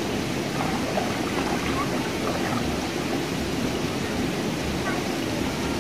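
Steady rush of water pouring from an inlet pipe into a fish pond, with faint distant voices now and then.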